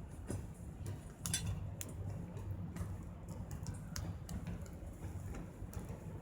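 Small wood fire crackling in a fire pit, burning scrap wood: irregular sharp snaps and pops over a low steady rumble.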